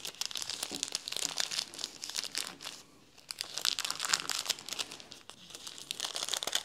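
Crinkle film (knisperfolie) crackling as it is crumpled and pushed into a crocheted pouch to make a baby's crinkle toy. The crackling is dense and irregular, with a brief lull about three seconds in.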